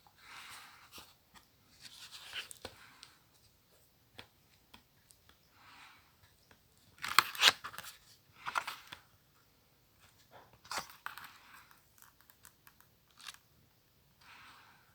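Paper and packaging being handled: a string of short rustles and tearing sounds, loudest about seven to nine seconds in, with a few sharp clicks between them.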